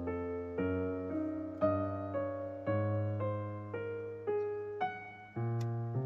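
Background piano music: a gentle, slow melody over low bass notes, with a new note or chord struck about every half second, each one fading away.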